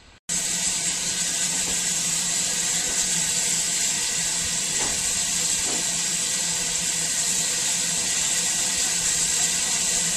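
Newly reboilered steam locomotive hissing: a loud, steady rush of escaping steam with a low hum beneath it, starting and stopping abruptly.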